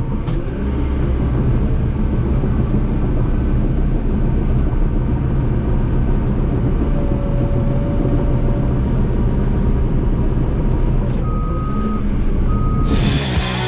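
Diesel engine of a heavy earthmoving machine running steadily under load while grading. Near the end its backup alarm gives two short beeps as it reverses, and then music comes in abruptly.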